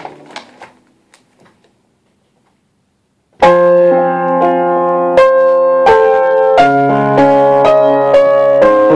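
A few light knocks and paper sounds as sheet music is handled at an upright piano, then about three seconds of quiet. From about three and a half seconds in, the upright piano is played loudly in full, sustained chords at a steady, moderate pace.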